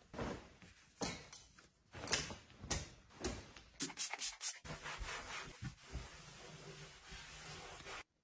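Clothes and hangers being handled, with rustling and light knocks, then a pump spray bottle misting five or so quick times about four seconds in, followed by steady rubbing until the sound cuts off suddenly near the end.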